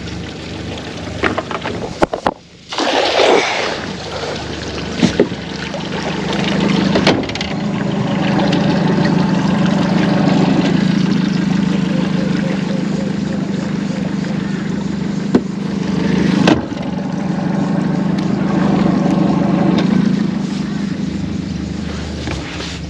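A boat's motor running steadily under way, a constant low hum, with a short rush of noise about three seconds in.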